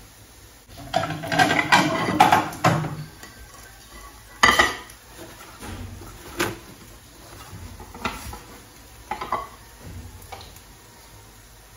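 Kitchen dishes and cutlery clattering: a busy run of knocks and clinks, then one sharp loud clink and a few lighter knocks spaced out after it.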